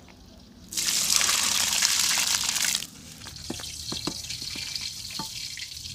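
A loud rushing hiss for about two seconds, then a quieter steady sizzle with a few sharp clicks: milkfish slices frying in oil in a wok, with a wooden spatula tapping the pan.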